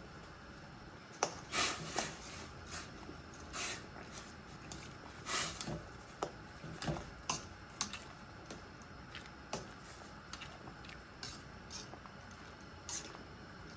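Cabbage being stirred in a pot with a cooking utensil: irregular scrapes and light clinks of the utensil against the pot. They come thickest in the first half and thin out toward the end.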